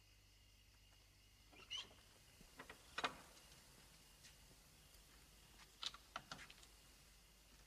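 Near-quiet room tone with a handful of soft footsteps and scuffs, the clearest about two, three and six seconds in.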